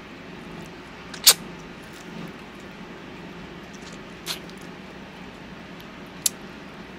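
Close-up eating sounds from a chocolate-and-nut-coated ice cream bar: three short, sharp mouth sounds, the loudest about a second in, the others near four and six seconds.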